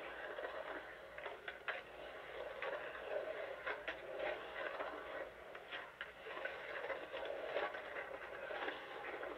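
Skateboard wheels rolling on a concrete bowl, a steady rough rumble with scattered clicks and clacks from the board and trucks, heard thin and muffled as if played back through a TV speaker.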